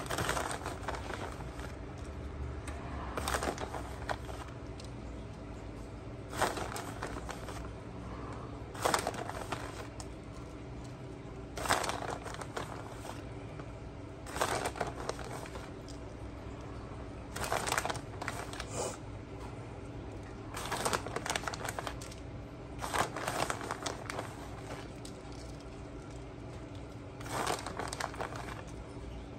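Plastic bag of shredded parmesan crinkling in short bursts every two or three seconds as handfuls of cheese are taken out and sprinkled.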